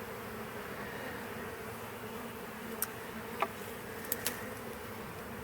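A colony of honeybees buzzing steadily around their hive, a dense even hum of many wings. A few faint clicks sound about three to four seconds in.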